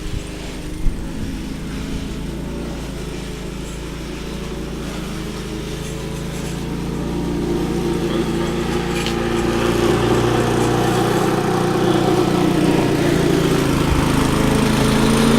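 Gas lawn mower engine running steadily, growing louder over the second half.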